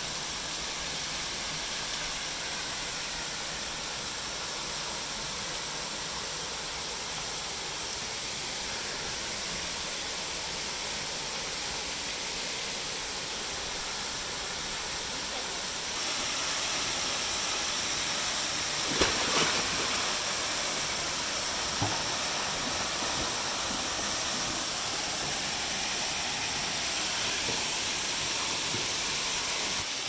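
Steady rush of water, a dense hiss that gets louder about halfway through, with a couple of brief knocks near the middle.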